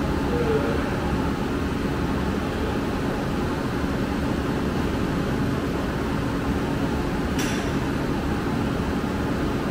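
Steady low machinery drone with a faint steady hum, and one short sharp click about seven seconds in.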